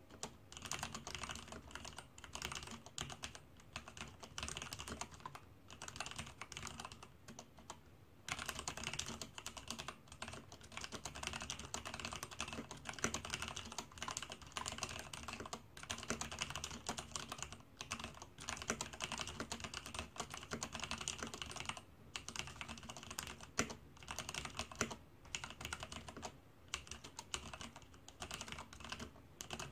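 Typing on a Leopold FC660M compact mechanical keyboard with Cherry MX Black linear switches: a fast, steady run of key clacks with brief pauses now and then.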